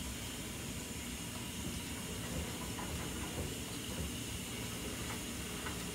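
Steady low rumble and hiss of kitchen background noise, with a few faint ticks.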